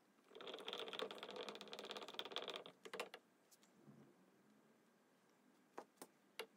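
A wooden stick stirring and scraping around a glass jar of melted pearl hide glue, giving a fast rasping rattle for a couple of seconds. A few light knocks follow.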